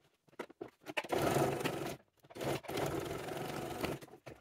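Sewing machine stitching in two runs, about a second and then nearly two seconds, with a short stop between, sewing back over an existing seam. A few small handling clicks come before it starts.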